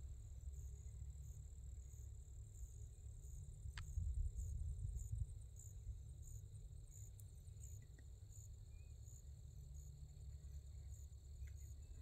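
Crickets chirping faintly in the field: a steady high trill with small pulses repeating about twice a second, over a low rumble.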